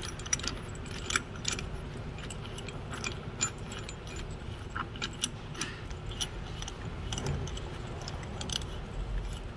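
Scattered light metallic clicks and clinks from a threaded bolt, nut and washer piston-pusher tool being turned by hand inside a brake caliper. They mark the brake caliper piston being pushed back into its bore.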